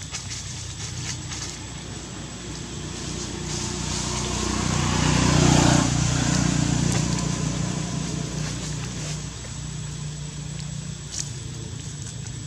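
A motor vehicle passing on a nearby road: its engine hum and noise build up, peak about halfway through, then fade away.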